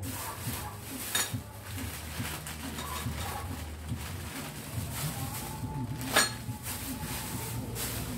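Metal motorcycle parts clinking and knocking as they are handled on a workbench, with a sharp clank about six seconds in, over a low steady hum.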